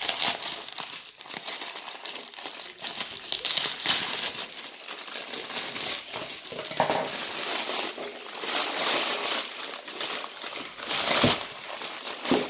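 Packaging being crinkled and crumpled by hand as a phone is unwrapped, a continuous crackling rustle, with a single knock near the end.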